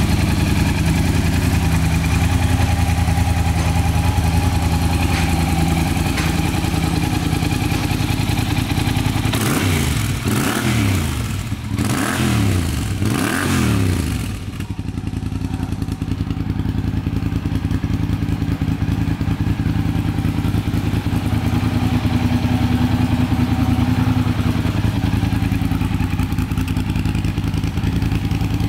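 Yamaha TDM 850 parallel-twin engine idling through an aftermarket Black Widow silencer, blipped a few times on the throttle between about ten and fourteen seconds in, each rev rising and falling back before it settles to a steady idle.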